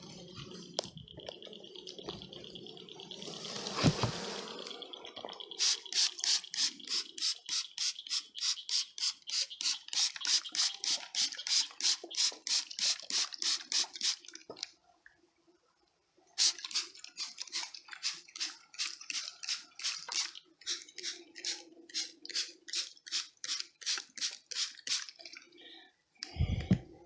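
Hand spray bottle squirting sugar water onto a package of honey bees in quick strokes, about three a second, in two long runs with a short pause between, to wet the bees so they drop and quiet down. A faint steady buzz of the bees runs underneath, and there is a thump about four seconds in.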